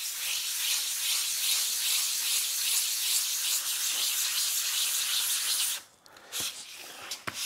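Fine sharpening stone being rubbed back and forth on kerosene-wetted 240-grit wet-and-dry paper over a glass sheet, to flatten the stone's face: a steady gritty scraping hiss. It stops about six seconds in, a light knock follows, and the scraping starts again at the very end.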